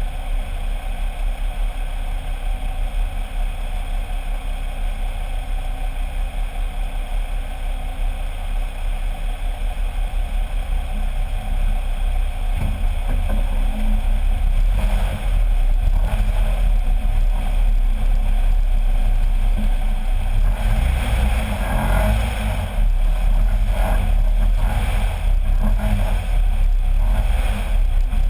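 A Jeep Wrangler LJ Rubicon driving, heard from under its front axle: a steady road and wind rumble that gets louder about halfway through, with uneven bumps and buffeting in the second half.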